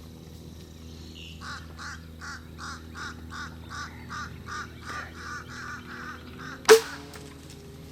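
A bird calls in a quick run of about sixteen evenly spaced notes, roughly three a second. Near the end comes one sharp, loud snap of a traditional bow being shot, with a brief twang of the string.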